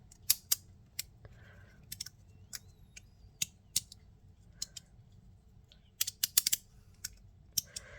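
Irregular sharp clicks and clacks of a glow derby fidget slider and its sandwich plate being handled, with a quick run of clicks about six seconds in.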